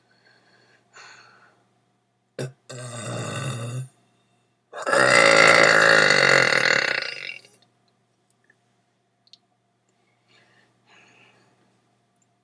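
A person burping deliberately: a burp about a second long, then a louder, drawn-out burp lasting about three seconds.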